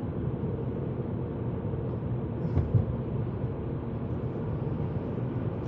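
Steady low road and engine noise of a car driving, heard from inside the cabin, with one brief low thump about two and a half seconds in.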